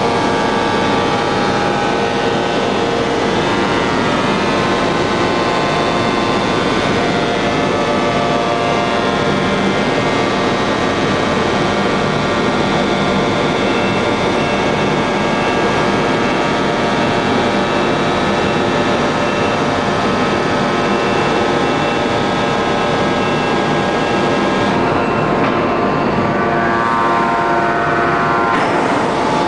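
Heavy industrial machinery, the hydraulic forging press plant, running steadily: a loud, even hum with several steady tones and no impacts. About 25 s in the highest part of the sound drops away.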